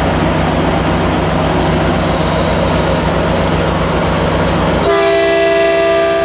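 Caltrain diesel locomotive No. 900, an EMD F40PH, running steadily close by with a low, pulsing engine note. About five seconds in, a train horn sounds several notes at once and holds.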